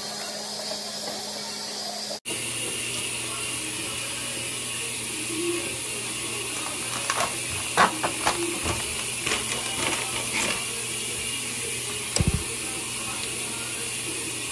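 Small toiletry items being handled: a run of light clicks and rattles in the middle and a short dull thump near the end, over a steady background hiss.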